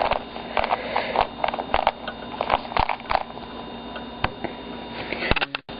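3x3 Rubik's cube being turned quickly to scramble it: runs of rapid plastic clicks and clacks, busiest in the first three seconds, then a few scattered clicks.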